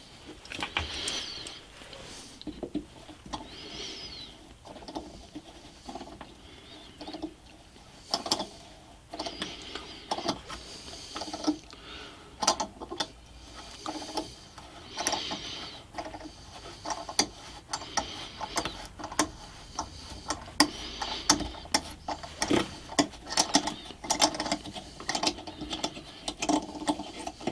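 M6 hand tap in a T-handle tap wrench cutting a thread into a 5 mm hole in an ash block, giving irregular clicks as the wrench is turned, coming more often from about a third of the way in.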